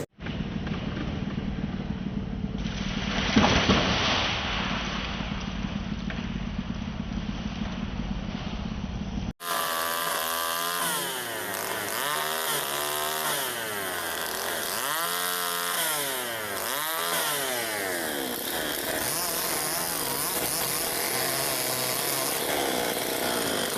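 Chainsaw engine running steadily, briefly louder about three seconds in. After an abrupt cut about nine seconds in, the chainsaw revs up and down several times, then runs on steadily.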